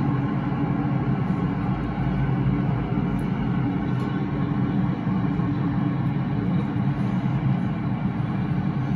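Hong Kong MTR M-train (Metro-Cammell electric multiple unit) running at a steady speed, heard from inside the car: a loud, even rumble of wheels on rail with the noise of the moving train.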